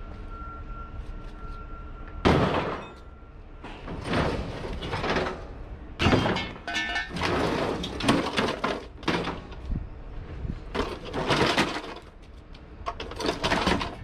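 Scrap steel being thrown and dragged about: a series of loud metal crashes and scrapes, one of them ringing briefly about halfway through. A steady high tone is heard in the first few seconds.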